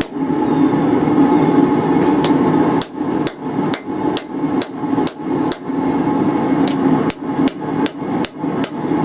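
Hand hammer striking a railroad spike on an anvil to flatten its tip: a run of sharp strikes, about three a second, starting about two seconds in and broken by short pauses, over a steady droning hum.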